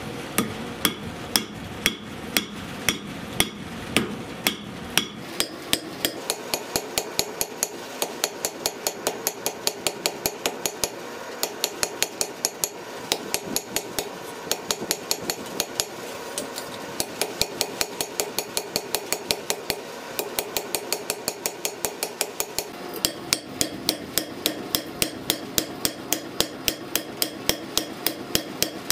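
Blacksmith's hammer striking red-hot steel on an anvil in a steady run of blows, each with a bright anvil ring. The blows come about two a second at first, then quicken to around four a second some five seconds in.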